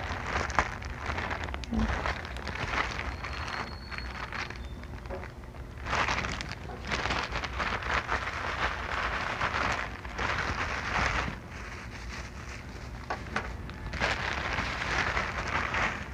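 Thin plastic packaging crinkling and rustling as a courier pouch is opened and the plastic-wrapped items are pulled out of it. The rustling comes in several uneven bouts.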